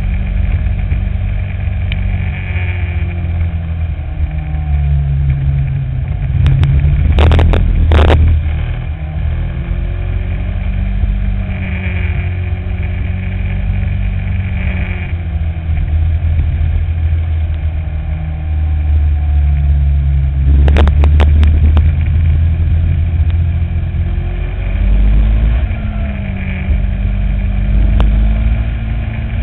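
Racing kart engine at full race pace, its pitch rising and falling over and over as it accelerates down the straights and slows for corners. A few sharp knocks come about seven seconds in and again about twenty-one seconds in.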